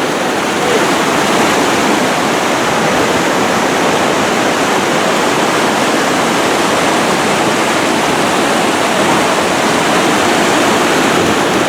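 Waterfall rushing: a loud, steady noise of falling water that holds constant throughout.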